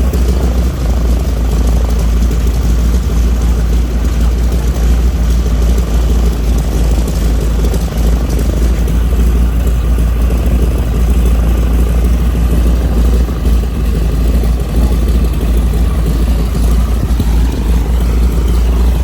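Radial engine and propeller of a vintage trainer airplane running steadily at power: a loud, continuous drone with a deep rumble.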